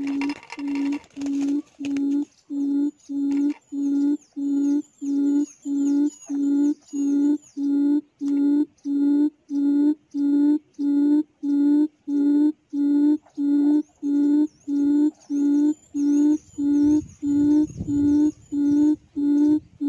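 A recorded quail call played through a loudspeaker as a lure: one low hooting note repeated steadily, a little under two a second. In the first second or so a trapped quail's wings flutter against the net.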